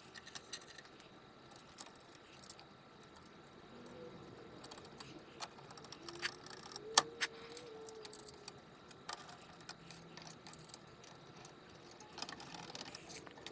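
Faint, scattered metallic clicks and clinks of nuts, screws and a nut driver as a pinball machine's speaker panel is fastened back in place.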